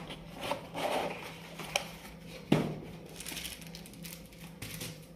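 Cardboard kit box and its paper contents being handled: rustling, a light click, then a sharp knock about two and a half seconds in.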